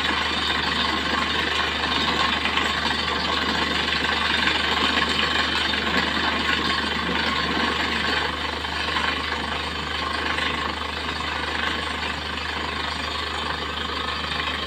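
Borewell drilling rig running steadily, with a strong column of water blasting up out of the bore and spraying down: the bore has struck a heavy flow of water. A constant low engine hum sits under a dense rushing hiss, which eases a little about halfway.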